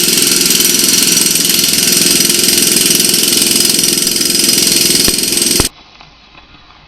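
Work machinery engine running steadily, cutting off abruptly a little under six seconds in.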